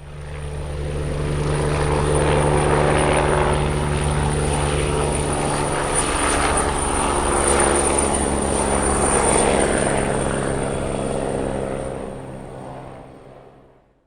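Helicopter running steadily, a low rotor and engine hum under a thin high whine, fading in at the start and fading out near the end.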